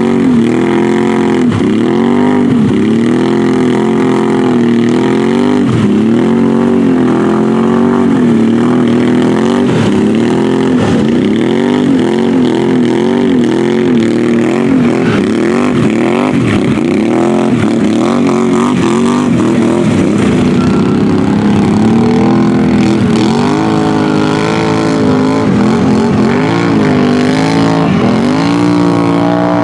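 A 4x4 quad ATV's engine revving up and dropping back again and again as the machine churns under load through a deep, water-filled mud bog.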